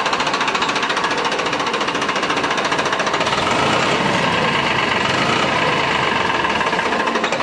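Farmtrac 60 tractor's three-cylinder diesel engine running steadily at close range, with a fast, even knock of its firing.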